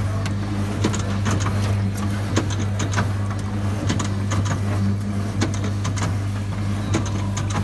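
Automatic orange-juicing vending machine running: a steady motor hum with irregular clicks and knocks from its squeezing mechanism as it juices oranges.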